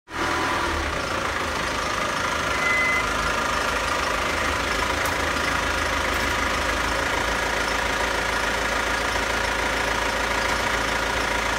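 Mazda Bongo Friendee's 2.5 L WL turbo-diesel engine idling steadily.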